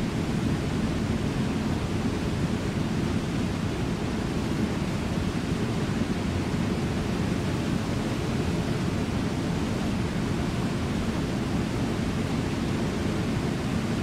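Brooks Falls and the rapids below it rushing steadily: an even, deep rush of falling water with no breaks.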